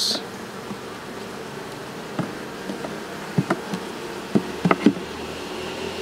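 Honeybee colony humming steadily on the exposed frames of an open hive, with a few light knocks about two seconds in and several more toward the end.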